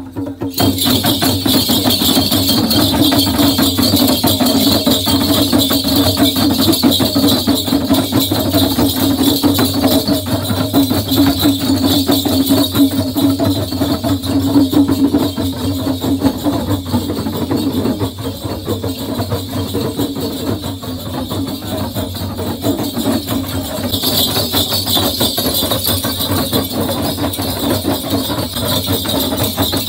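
Traditional dance music: small hand drums beaten in a fast, steady patter, with metallic jingling over it.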